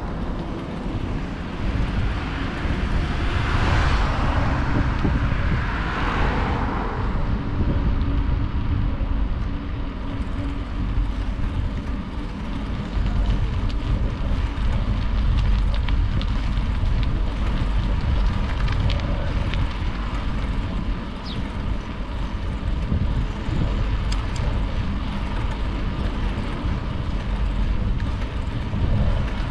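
Wind buffeting an action camera's microphone on a moving bicycle: a constant low rumble with rushing noise, swelling louder for a few seconds near the start.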